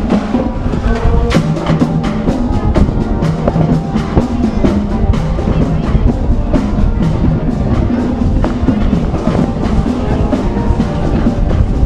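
Parade music with drums: a quick, steady beat of drum strikes under held melody notes.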